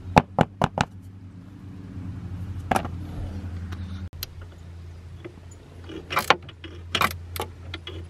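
Scattered clicks and light rattles of plastic car interior parts being handled, with a cluster of quick clicks in the last two seconds, over a low steady hum.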